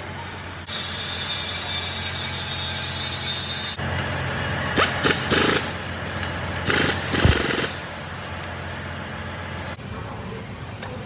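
Mechanical workshop noise: a steady low hum, a hiss lasting about three seconds, then several short loud bursts from a power tool.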